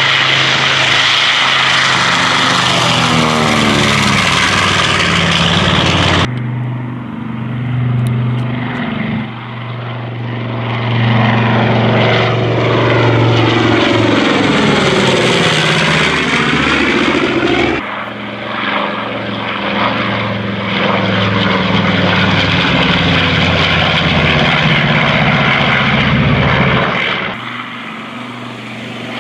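North American B-25 Mitchell's twin radial engines and propellers running loud in low passes over the airfield, the engine note sweeping as the bomber goes overhead. The sound changes abruptly at cuts about 6, 18 and 27 seconds in.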